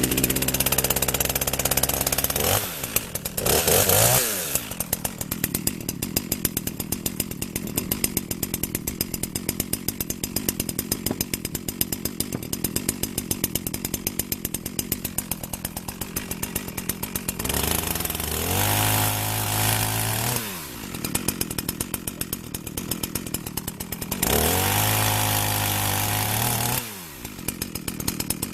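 Two-stroke chainsaw cutting firewood: the engine goes to full revs four times, for a second to three seconds each, and after each run its pitch falls back to a steady ticking idle.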